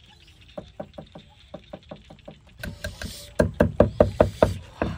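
Cleaver chopping red chilies on a round wooden chopping board: a quick, even run of knocks, about five a second, light at first and much louder from about halfway.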